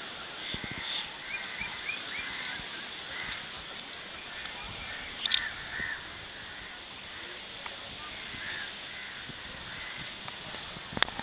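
A chorus of many birds chirping and calling over a steady high drone, with one loud, harsh call about five seconds in and a sharp click near the end.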